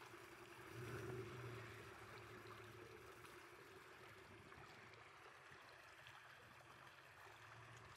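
Off-road vehicle's engine running faintly and steadily, a low hum under a soft hiss, swelling slightly about a second in.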